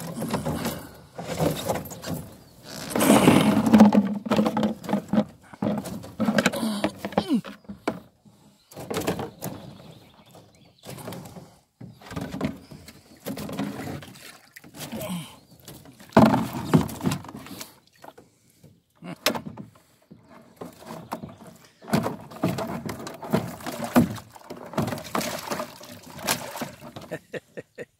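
Wire-mesh fish trap rattling and clattering, its frame knocking against the boat as it is handled and emptied, in irregular clicks and thumps throughout.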